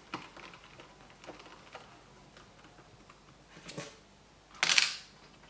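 Small screwdriver turning a screw into a laptop-style CPU plate, giving scattered light clicks and ticks, with a brief louder rustle about four and a half seconds in.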